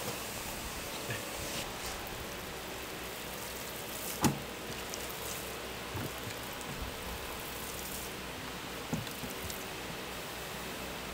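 Steady kitchen background hiss and low hum, with a few faint clicks and one sharper knock about four seconds in.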